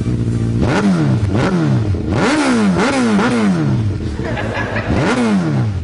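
1000cc Suzuki motorcycle engine idling, then revved with a series of quick throttle blips from under a second in, the pitch shooting up and falling back each time, with one more blip near the end.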